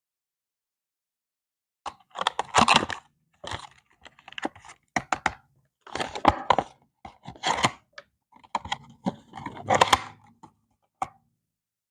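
Stationery packaging being handled and opened: crinkling and tearing of wrap in irregular bursts with sharp clicks, starting about two seconds in.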